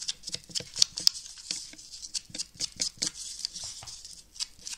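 Ink-blending tool dabbed and rubbed along the edges of a paper cut-out to darken them with brown ink: a quick, irregular run of papery taps and scuffs, several a second.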